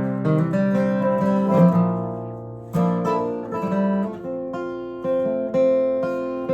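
Acoustic guitar playing chords, each chord struck and left to ring and fade before the next, about every three seconds.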